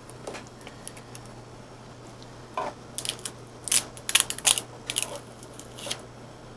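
Crinkling and crackling of the green insulating wrap and tape as they are peeled and handled off a pack of cylindrical LiFePO4 cells, a flurry of short crackles starting about two and a half seconds in. A steady low hum runs underneath.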